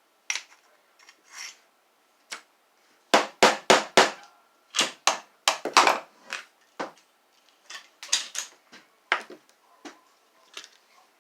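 Irregular sharp knocks and clatters of hard vacuum-wand parts being handled and set down, with a quick run of four loud knocks about three seconds in.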